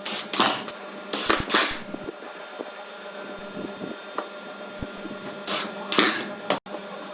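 Hand work on wood: short scraping strokes in three pairs, about a second in, near the start and around six seconds in, over a steady low hum.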